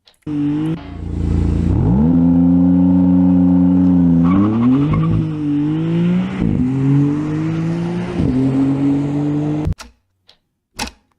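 High-performance car engine launching and accelerating hard, its pitch climbing and then dropping and rising again at several quick gear changes. It cuts off abruptly near the end.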